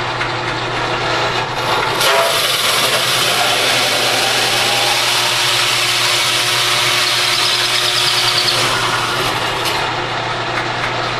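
1960s Craftsman drill press running at its slowest speed, about 550 RPM, with a steady motor hum, while a 3-inch hole saw cuts through half-inch plywood from about two seconds in until near nine seconds.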